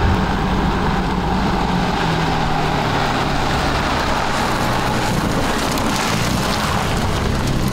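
BMW M4 Competition's twin-turbo straight-six, still on its stock exhaust, running steadily as the car drives along the road, with a hiss of tyre and road noise.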